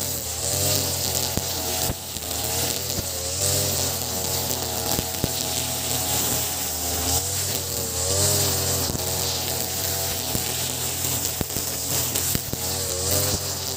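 Ogawa BG330 backpack brush cutter's 33cc two-stroke engine running at cutting speed, its pitch dipping and rising as the 2.4 mm square nylon line bites into grass. Over it are the hiss of the spinning line and scattered sharp ticks of the line striking grass and debris.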